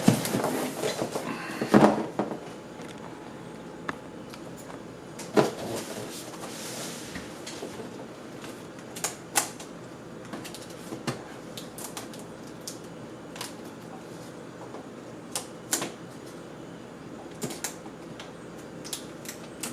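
Cardboard box being opened by hand: scattered clicks, taps and scrapes of the packaging at uneven intervals, over a faint steady hiss.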